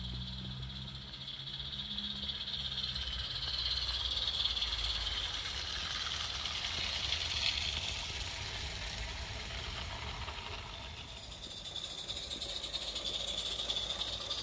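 Small live-steam garden-railway locomotive running past with its goods train: hissing steam exhaust and the rattle of wagons on the track, swelling to a peak and then fading. Near the end a similar hiss builds again.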